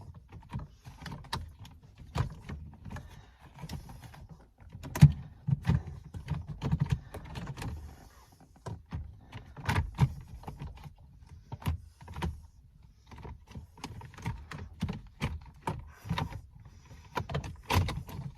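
Plastic shifter trim panel in a car's center console being worked loose by hand: irregular clicks, knocks and dull thumps, the loudest about five seconds in.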